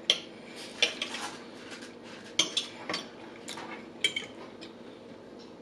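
Metal cutlery clinking and scraping against a dish as food is cut and picked up: a string of short, sharp clicks at irregular intervals, the loudest near the start and about halfway through.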